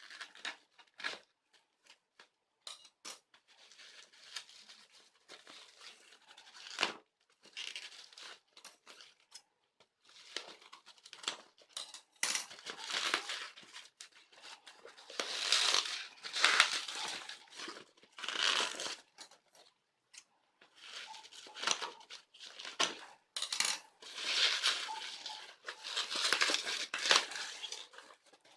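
Shipping packaging being torn open and crinkled by hand: irregular rustling and tearing, sparse at first, then louder and almost continuous from about halfway through.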